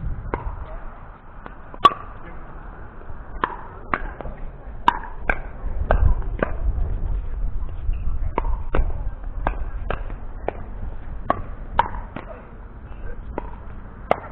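Pickleball rally: sharp knocks of paddles striking the plastic ball and the ball bouncing on the hard court, in runs about every half second, over a low steady rumble.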